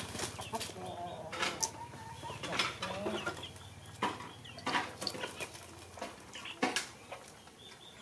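Light clicks and taps of a spoon and chopsticks against china bowls while noodles are hand-fed, over short clucking calls from an animal and a low steady hum that stops about six seconds in.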